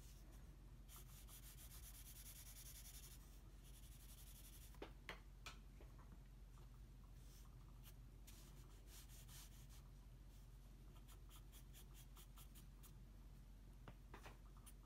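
Pencil scratching faintly on drawing paper in runs of quick back-and-forth shading strokes, with a few light ticks of the pencil about five seconds in and near the end.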